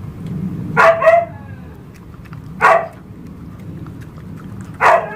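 Shih Tzu barking: a quick double bark about a second in, then single barks near three seconds and near the end.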